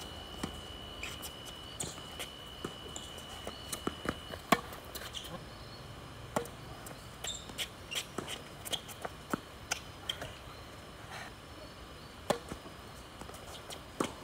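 Tennis rallies on a hard court: irregular sharp pops of racket strings striking the ball, some close and some fainter from the far end, and the ball bouncing between strokes.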